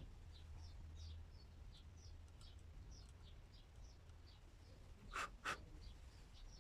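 Faint bird chirping in the background: a steady run of short, quick, high chirps, two or three a second. About five seconds in come two sharp clicks in quick succession, the loudest sounds here.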